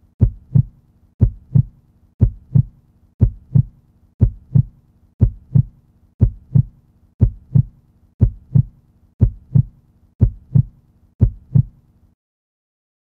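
Heartbeat sound effect: a steady lub-dub of two low thumps close together, about once a second, stopping near the end.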